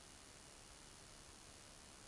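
Near silence: only a faint, steady hiss of the recording's noise floor.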